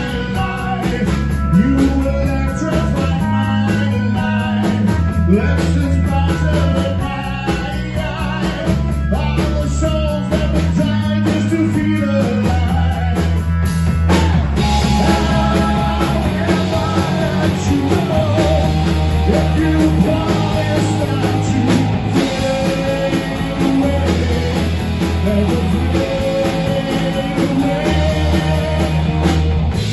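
Live rock band playing: electric guitars, bass guitar and a drum kit, with a man singing into a microphone. About halfway through, the sound fills out at the top.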